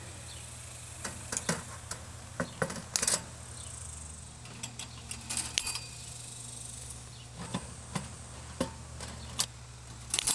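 Cutters snipping through chain-link fence wire: about a dozen sharp, irregular clicks and snaps, with the loose metal mesh jingling. A steady low hum runs underneath.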